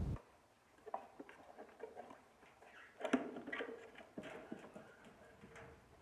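African lovebirds in a wire cage giving scattered short chirps, mixed with small clicks; the loudest comes about three seconds in.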